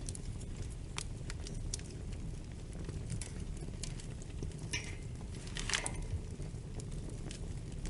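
Wood fire crackling over a steady low rumble, with scattered small pops and a louder run of crackles about five seconds in.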